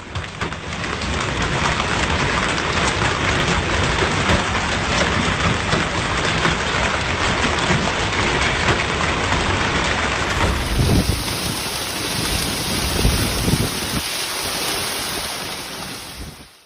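Heavy rain pouring down: a loud, steady rush with a dense patter of drops. The sound changes about ten seconds in, where a different recording of the downpour takes over.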